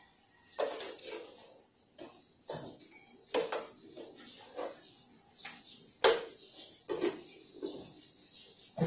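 Kitchenware being handled while coffee is made: cups, a jug and utensils knocking and clinking on the counter in a string of separate sharp clatters, the loudest about six seconds in. A cupboard door is handled near the end.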